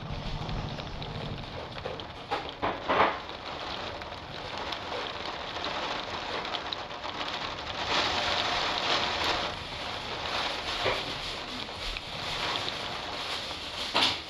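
Steady rain with gusts of wind rushing over the microphone, swelling louder a few seconds in, again about two-thirds of the way through, and briefly near the end.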